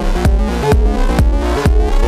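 Electronic dance music with a steady kick drum, about two beats a second, under layered synth tones.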